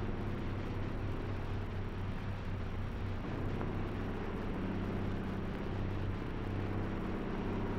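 Steady drone of a propeller aeroplane's engine, its tone shifting slightly a couple of times, over the hiss and hum of an old film soundtrack.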